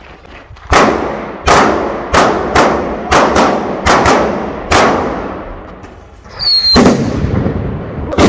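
A ring of Polish firecrackers chain-fired from one fuse, going off one after another: about nine sharp bangs over some four seconds at uneven spacing. Near the end a short high whistle is followed by two more bangs.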